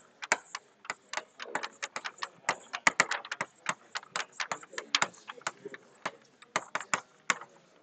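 Quick, irregular clicking of keys or buttons being pressed, several clicks a second, like someone typing.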